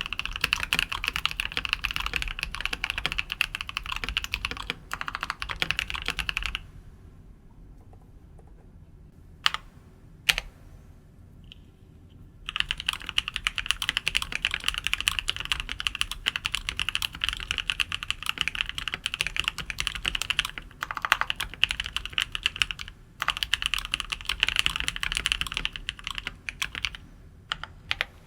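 Fast typing on a mechanical keyboard fitted with linear switches, a dense clatter of keystrokes. The typing stops for about six seconds a third of the way in, broken by two single key clacks, then starts again and runs on with a couple of brief pauses.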